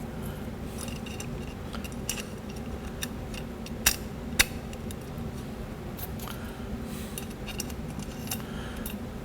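Light metal clicks and clinks of small parts being handled as boost springs are fitted into a 4L60E transmission's input drum, with two sharper clicks about four seconds in, half a second apart, over a steady low hum.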